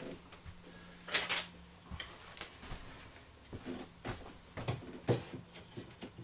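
Scattered light knocks, clicks and scrapes of wooden pieces being handled and set in place, with a loud knock about a second in and another about five seconds in, over a faint steady hum.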